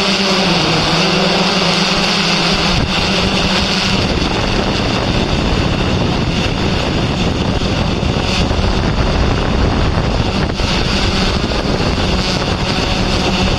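Steady whir of a hovering Yuneec Typhoon H hexacopter drone's rotors. From about four seconds in, wind rumbles on the microphone.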